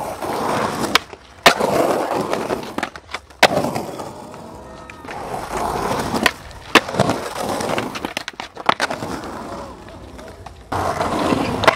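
Skateboard wheels rolling on hard pavement, broken by several sharp clacks of the board striking the ground during tricks and landings.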